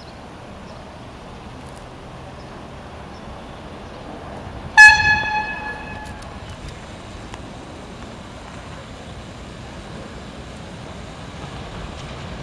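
Diesel multiple unit passenger train sounding its horn once, a short high-pitched toot about five seconds in, over the steady running of the approaching train.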